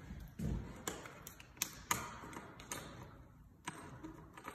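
About a dozen light, sharp clicks and taps at irregular intervals, over faint background noise.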